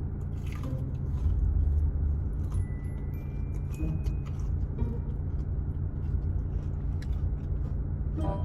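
Someone picking at and chewing crispy breaded fried frog legs, with faint scattered clicks and crunches. Under it runs a steady low rumble, which is the loudest thing.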